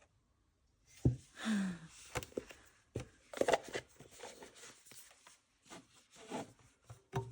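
Objects being handled on a tabletop: scattered light knocks and clicks of wooden items, with brief rubbing and rustling in between.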